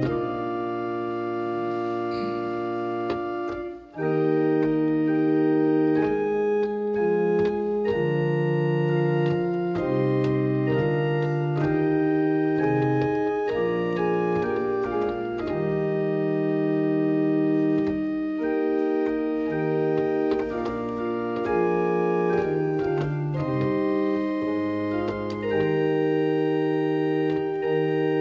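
Organ playing a slow chorale in sustained chords that change about once a second, with a short break in the sound about four seconds in.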